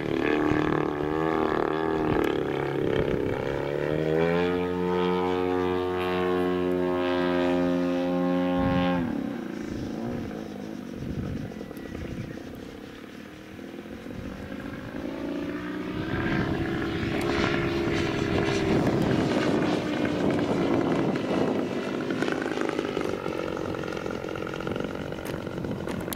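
Large radio-controlled airplane's motor and propeller. The drone rises to a steady high throttle, cuts back about nine seconds in and fades. It then grows louder again, its pitch shifting as the plane flies past.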